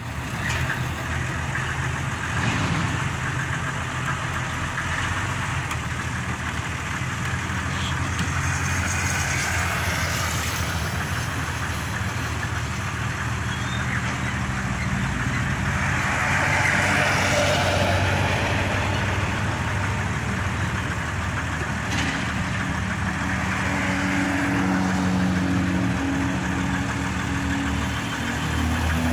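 Old truck's engine running steadily under load as it slowly pulls a wooden house on a trailer, its note stepping up a little in the last few seconds.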